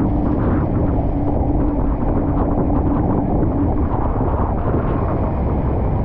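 Tour motorboat running through rough whitewater: a steady engine hum under rushing water and wind buffeting the microphone. The hum drops away a little past halfway while the water and wind noise carry on.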